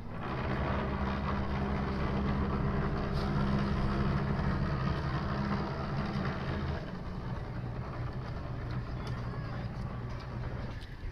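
The diesel engines of a Tamar-class RNLI lifeboat manoeuvring under power give a steady low hum. The hum eases off about two-thirds of the way through as the throttle comes back.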